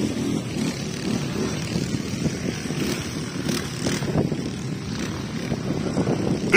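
Quad bike (ATV) engines running, a steady low rumble.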